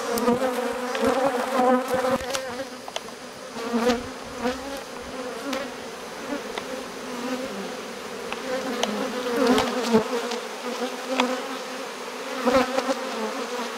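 Steady buzzing hum of a dense mass of honeybees clustered over the front of a hive, with a few brief knocks.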